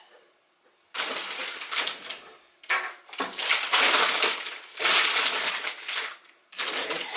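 Four long bursts of gritty scraping and grinding: a C-clamp screw being turned by hand under load, pressing a wrist pin into a connecting rod.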